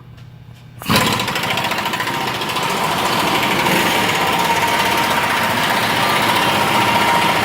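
A power tool, likely an impact wrench, running steadily on the driver's side torsion bar adjuster bolt to change the ride height; it starts about a second in and runs without a break.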